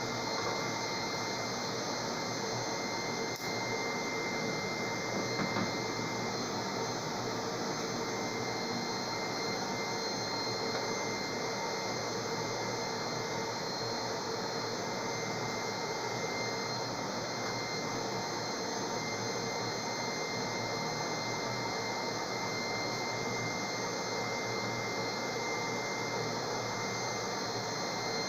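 Hair dryer running steadily as the air blower of a homemade gas-cylinder forge: a constant rush of air with a faint steady whine.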